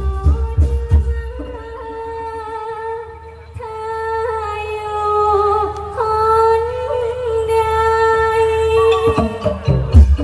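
A woman singing through a microphone and PA with band backing, holding long, wavering high notes in a Thai likay stage song. Heavy drum beats come in the first second and again near the end.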